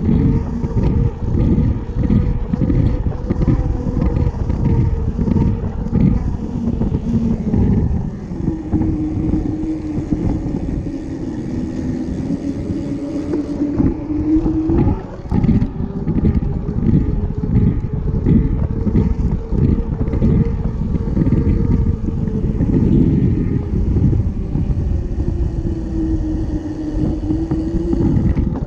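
Wind buffeting the microphone and road rumble from a camera riding on a moving bicycle, with a steady hum that slowly dips and rises in pitch.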